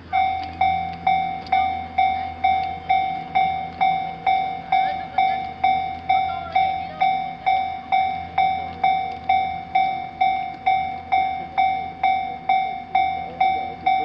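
Japanese railway level-crossing warning alarm starting up and ringing steadily at about two dings a second. Each ding is a bright bell-like tone that fades quickly. The alarm warns of an approaching train as the crossing lights flash and the barriers lower.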